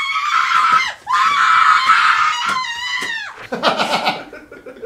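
A woman screaming in fright: two long, high-pitched screams, the second falling in pitch as it dies away, then lower, rougher cries near the end.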